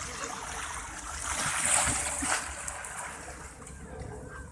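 Water splashing and sloshing, swelling loudest about halfway through.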